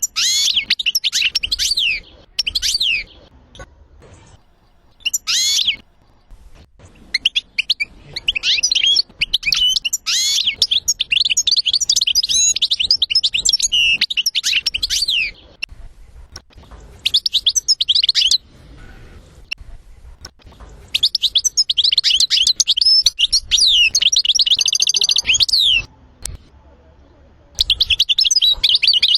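European goldfinch song: bursts of rapid, high twittering phrases broken by short pauses, with a fast, even trill toward the end.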